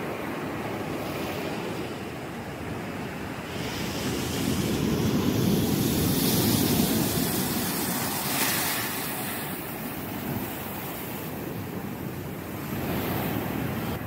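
Ocean surf: waves breaking and washing in, swelling to the loudest in the middle with a hissing wash just after, and a smaller swell near the end.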